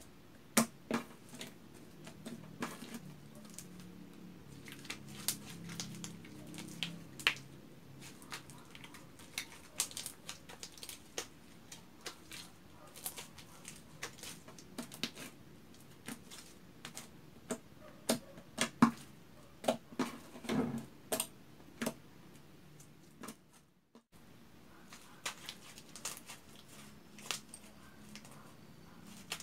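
Pink homemade glue slime being squeezed, stretched and folded by hand, giving irregular sticky clicks and pops.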